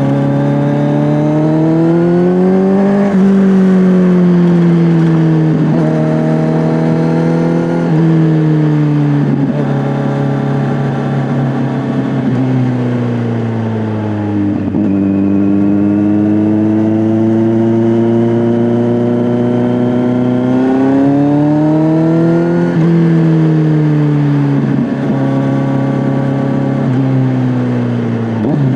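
Kawasaki Z900 inline-four through an SC-Project S1 exhaust, heard from the rider's seat, pulling up through the gears with upshifts about 3, 6 and 8 seconds in. It then slows, with the pitch falling, until about halfway, cruises at a steady pitch, and accelerates again from about 21 seconds with three more upshifts, easing off right at the end.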